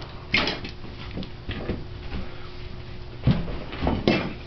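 A few sharp knocks and clunks of hard parts being handled, one near the start and a cluster of three near the end, over a faint steady hum.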